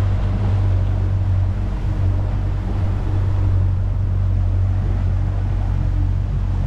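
Outboard motor running at a steady cruising speed, a constant low hum, with water rushing past the hull and wind noise over it.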